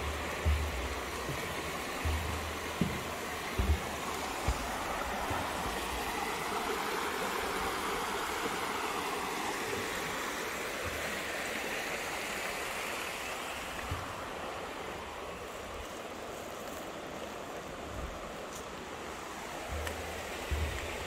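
Steady rush of running water from a forest stream, swelling a little in the middle and easing off in the second half. A few low thumps come in the first few seconds.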